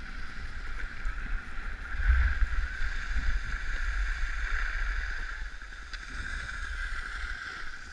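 Wind buffeting the camera's microphone, mixed with Rossignol skis hissing over packed snow on a downhill run. The rush is strongest in the middle and eases about five seconds in as the skier slows.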